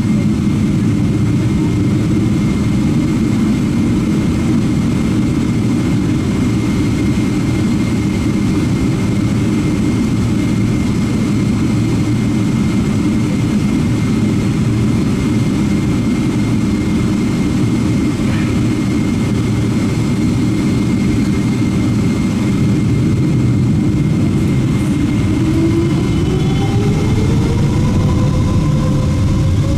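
Boeing 777-300ER's GE90-115B jet engines heard from inside the cabin: a steady low rumble while the airliner taxis onto the runway. About 25 seconds in, a rising whine begins as the engines spool up for the takeoff roll.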